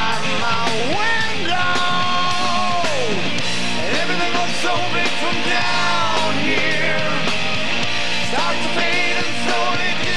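Rock band playing live: electric guitar, bass guitar and drums, with a man singing lead over them.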